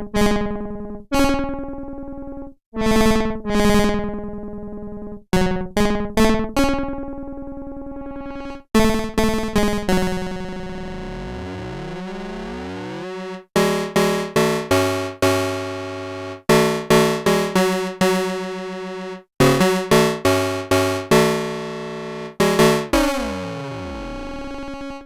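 Behringer CRAVE analog synthesizer played dry, with no effects: a single-voice sequence of short notes that start sharply and die away quickly, with a few longer held notes in the middle and near the end, and brief silent gaps between phrases.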